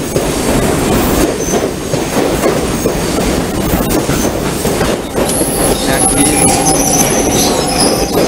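Electric commuter multiple-unit train, a Chinese-built CNR 3000 series, moving along the platform with a steady rumble of wheels and running gear and occasional sharp clicks. From about five seconds in, a steady high-pitched wheel squeal sets in over it.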